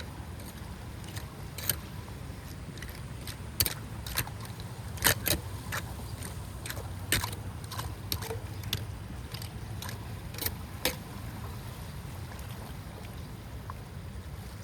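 Steady low rush of flowing water, with a dozen or so sharp clicks and knocks over the first eleven seconds and then only the water.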